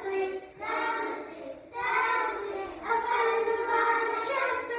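A group of young children singing a song together, in phrases about a second long.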